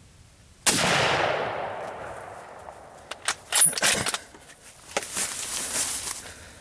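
A single rifle shot about a second in, its report rolling away and fading over about two seconds. A few sharp clicks and knocks follow, then rustling.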